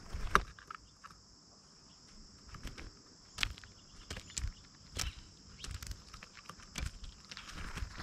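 Birds feeding on a mesh platform feeder: irregular sharp taps and knocks of beaks and feet on the seed and tray, the loudest just after the start as a common grackle lands. A steady high chorus of insects runs behind.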